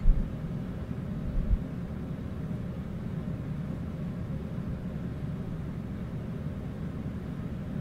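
Steady low rumble of room air-conditioning, with two dull low thumps in the first two seconds.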